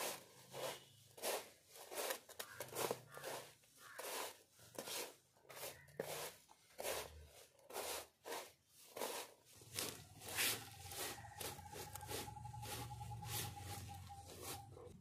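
Dry flattened rice flakes, grated coconut and jaggery being scrunched and tossed together by hand on a steel plate: a series of crisp rustling crunches, one to two a second.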